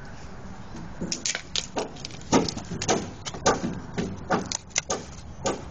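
An irregular series of sharp knocks and taps, about two a second, starting about a second in.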